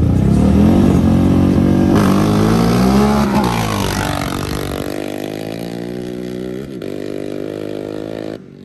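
Two ATVs launching from a standing start in a drag race, engines revving at full throttle with rising pitch, then running steady as they pull away down the track and the sound fades. The sound cuts off suddenly near the end.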